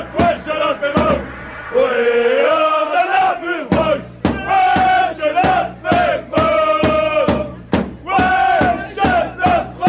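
Group of football supporters chanting loudly in unison, holding long sung notes, with sharp beats through the chant.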